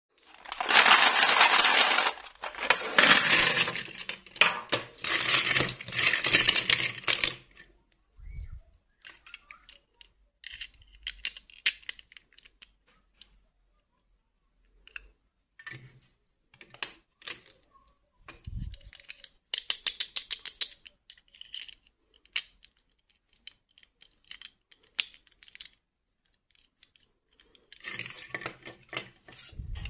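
Small plastic dolls clattering and rattling against a metal tray for the first several seconds. After that come scattered clicks and taps as the plastic dolls and their clip-on plastic dresses are handled, growing busier again near the end.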